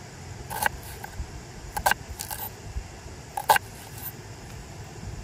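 About five short clicks and knocks of small objects being handled, at irregular intervals, over a steady background hiss.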